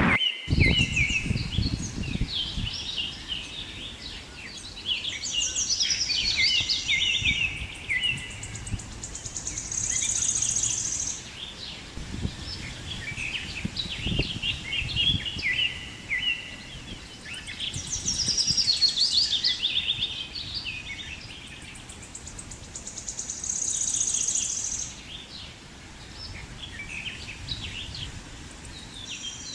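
Several birds singing and chirping in repeated, overlapping phrases, over a low rumble of wind buffeting the microphone.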